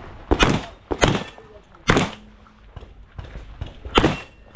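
Shotgun shots fired in an uneven string during a practical shooting stage: a quick pair about a third of a second in, another quick pair around one second, a single shot near two seconds and another near four seconds.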